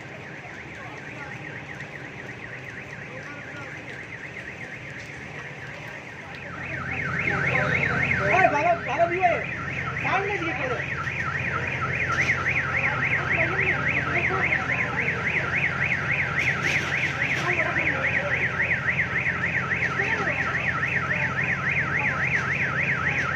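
Electronic alarm warbling rapidly and evenly, faint at first and much louder from about a quarter of the way in, over a low steady hum.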